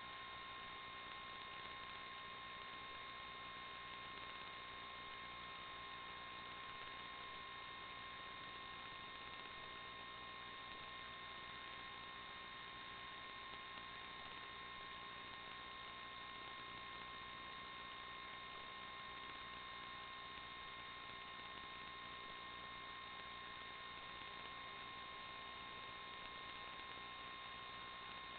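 Steady electronic hiss with a constant high whine, unchanging throughout: noise from the recording electronics rather than any real-world sound.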